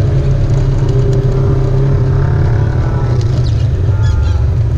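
Off-road vehicle engine running steadily, a continuous low rumble.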